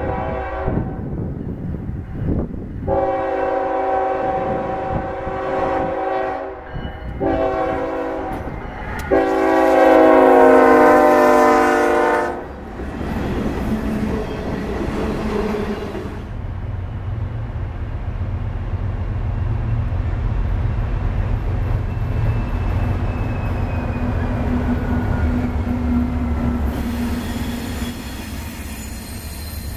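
Diesel freight locomotive's air horn sounding a chord in several blasts, the last one long and the loudest, ending about twelve seconds in. The train then passes close by with a steady rumble of engines and wheels on rail.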